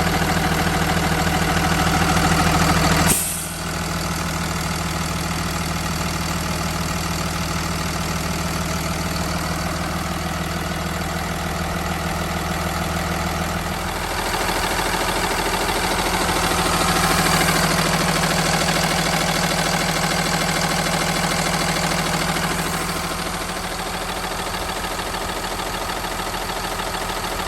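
Cummins diesel engine of a Blue Bird Vision school bus idling steadily. A short sharp noise comes about three seconds in, and the engine sound grows somewhat louder for several seconds past the middle.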